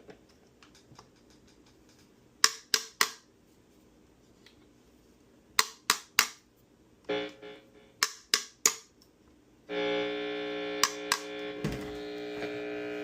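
Electric guitar played through an amplifier to test the rewired Epiphone SG Junior. A series of sharp clicks comes first, mostly in twos and threes. About ten seconds in, a steady tone with several pitches starts suddenly and holds.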